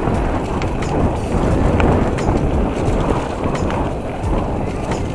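Mountain bike descending a rough, leaf-strewn dirt trail: a steady rumble of tyres on the ground with a continual clatter of small knocks and rattles from the bike over the bumps.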